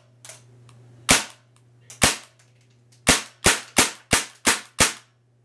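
CO2-powered MAC-11 style airsoft gun (G12 series) firing BBs on semi-auto: eight sharp shots, the first two about a second apart, then six in quicker succession, about three a second.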